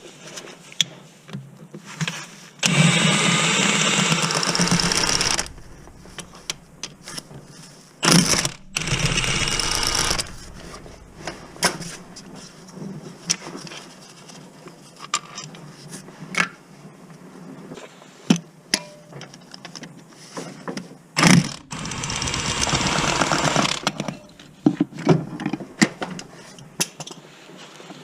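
Cordless power tool running in three bursts of about two to three seconds each, undoing or running in bolts, with clicks and knocks of hand tools and metal parts between the bursts.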